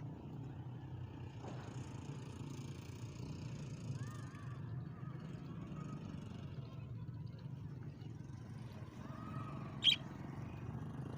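Budgerigars giving a few faint chirps over a steady low outdoor hum, with one sharp, loud chirp near the end.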